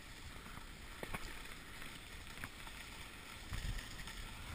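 Snowboard sliding and carving on snow: a steady scraping hiss with low rumble, with a couple of faint clicks.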